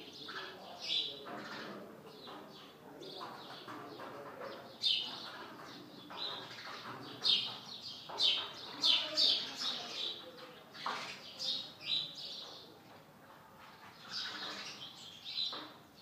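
House sparrows chirping: many short, sharp chirps coming in quick runs, busiest around the middle.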